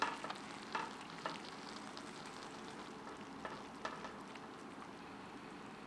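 Thick chili-and-spice paste sizzling quietly in a wok as chicken pieces are lifted out with tongs. A few light clicks and scrapes of the tongs against the pan come in the first few seconds. The braising liquid has cooked right down, so the paste is starting to fry.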